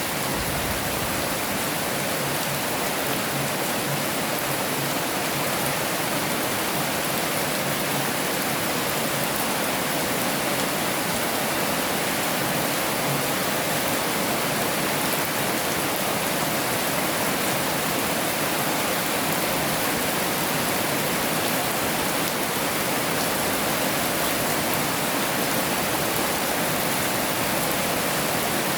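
Heavy rain falling, a steady dense hiss that does not change.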